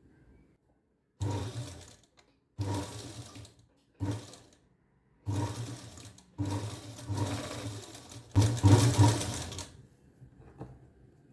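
Sewing machine stitching in six short runs of a second or two each, with brief stops between, as fabric tie strings are sewn onto a blouse's back neck; the last run is the loudest.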